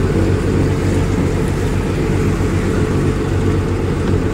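Steady low rumble of a moving road vehicle heard from on board, with a fainter hiss of tyres on the wet road above it.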